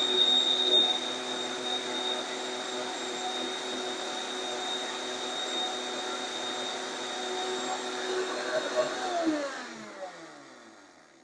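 Vitamix blender grinding dried eggshells into powder, its motor running steadily. About nine seconds in it is switched off and the pitch falls as the blades spin down to a stop.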